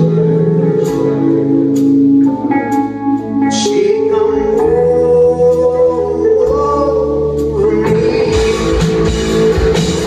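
Rock band playing live: electric guitars holding sustained chords over bass, with a few cymbal strikes and a sung vocal line. About eight seconds in, the drums and full band come in fuller.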